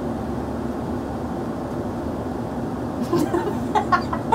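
Steady low background rumble. From about three seconds in, a person's voice breaks in with short vocal sounds, loudest near the end.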